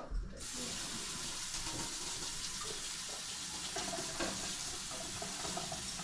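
Kitchen faucet running into the sink, a steady rush of water that comes on about half a second in.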